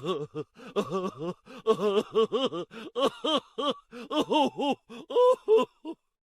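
A voice sound-effect clip: a quick run of short vocal syllables, each rising and falling in pitch, like comic babbling or laughing. It cuts off near the end.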